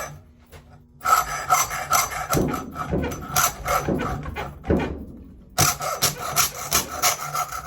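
A small metal scrap fitting being cut by hand with back-and-forth rasping strokes, starting about a second in, with a short pause about five seconds in. The way the metal cuts is being used to tell what it is: it does not cut like aluminium, pointing to brass or stainless steel.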